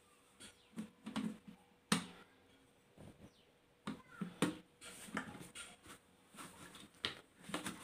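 A lidded plastic mixer-grinder jar holding milk, coffee and ice cream being shaken and moved by hand: irregular soft knocks and rattles, with liquid sloshing inside.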